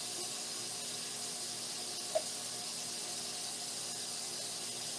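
Steady hiss with a faint hum underneath, and a single small click about two seconds in.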